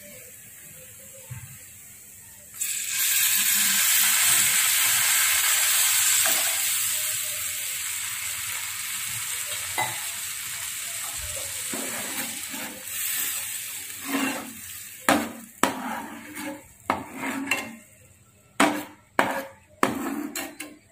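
Liquid poured into a hot nonstick pan of fried masala sets off a sudden loud sizzle a little under three seconds in, which slowly dies down as the gravy simmers. In the last several seconds a spatula stirs and scrapes the pan in a run of short, sharp strokes.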